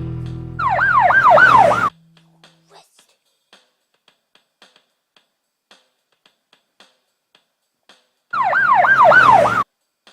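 Siren sounding in fast rising-and-falling yelps, two short bursts about seven seconds apart, each cutting off abruptly.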